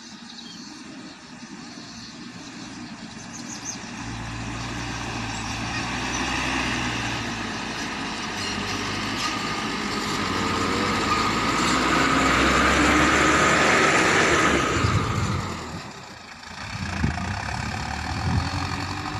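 Mitsubishi light dump truck's diesel engine drawing near along a dirt track. It grows louder as it comes, is loudest as it passes close about thirteen seconds in, then drops away quickly as it drives off.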